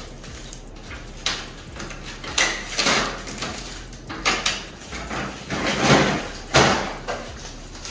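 Plastic paper cassette of a Sharp BP-20M22 copier being handled: its paper guides slide and rattle in a series of short scrapes, then the cassette is slid shut with a thump near the end.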